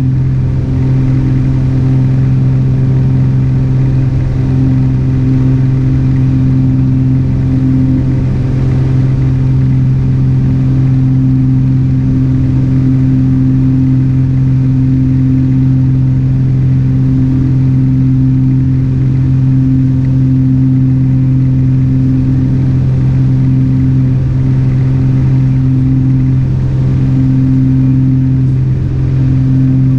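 Light aircraft's engine and propeller droning steadily in flight, heard from inside the cockpit: a loud, even hum with a deep fixed pitch that does not change.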